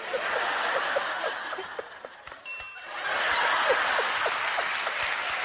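Studio audience laughing and applauding, with a short bell ding about two and a half seconds in.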